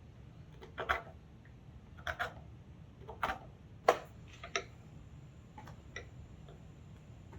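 A run of about seven irregular, sharp clicks and taps over a low steady hum, the loudest about four seconds in.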